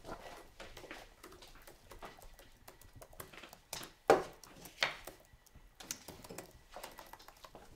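Soft, irregular clicking of a laptop keyboard being typed on, with two louder knocks about four and five seconds in.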